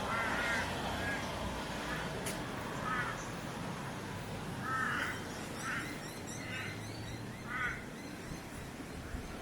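A bird calling outdoors: about six short calls at uneven intervals, over a steady low outdoor background.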